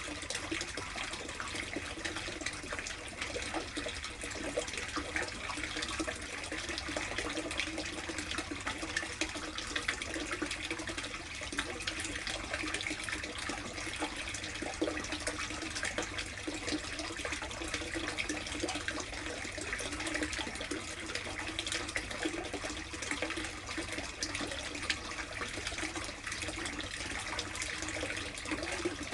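Water running steadily and splashing into an 800-litre plastic koi tub, a continuous wash of small splashes and trickles.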